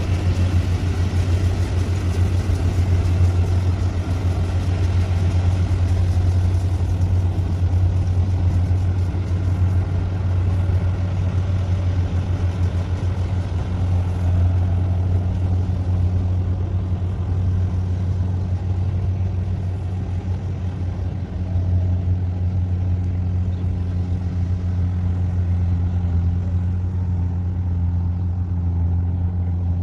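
Small rice combine harvester's engine running steadily as it cuts through standing rice, a constant low drone. The sound grows duller in the second half as the machine moves away.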